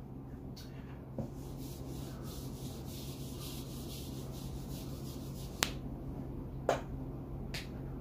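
Whiteboard being wiped clean with an eraser: a soft, rhythmic rubbing for a few seconds, followed by three sharp clicks about a second apart near the end.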